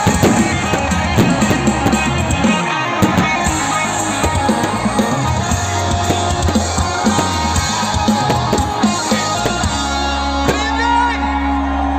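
Live rock band playing loudly over a festival sound system: full drum kit, guitars and bass. About ten seconds in the drums drop out and a sustained low bass note and a held chord ring on.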